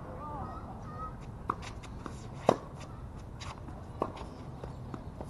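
Tennis ball being hit back and forth with rackets in a rally, sharp pops of the strings spaced a second or so apart, the loudest hit about halfway through, with lighter ball bounces between.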